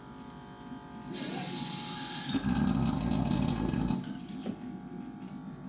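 Dräger Fabius GS anesthesia machine running its automated leak test, a mechanical whirring from inside the machine. It starts about a second in, grows louder about two seconds in, and stops about four seconds in.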